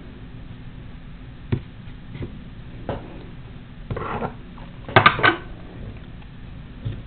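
Scattered light clicks, knocks and rustling from hands tying embroidery-floss knots on a bracelet project board. The loudest is a quick cluster of clicks about five seconds in.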